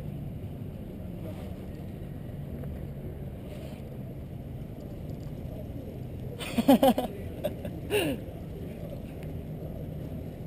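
Steady low outdoor background rumble, with a quick run of short vocal bursts about six and a half seconds in and a single brief falling vocal sound at about eight seconds.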